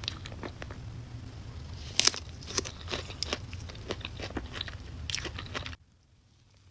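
Close-up eating sounds of strawberry cake: irregular chewing and biting with sharp clicks, loudest about two seconds in. A low background hum cuts off suddenly near the end, and the chewing goes on much quieter.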